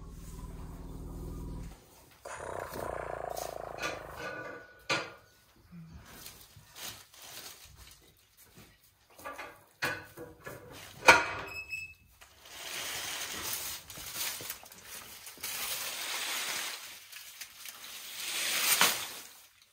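Leafy branches rustling and crackling as a young elephant calf pulls at them with her trunk, with scattered sharp snaps and knocks. A short low-pitched drone sounds at the start.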